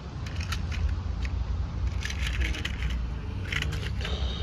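Handling noise: scattered light clicks and crunches over a steady low rumble.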